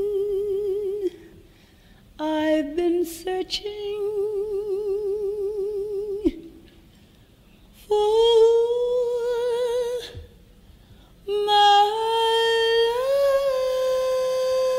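Female jazz vocalist singing a slow ballad in long held notes with a slow, wide vibrato. There are four phrases, separated by short quiet pauses, and each ends on a sustained note.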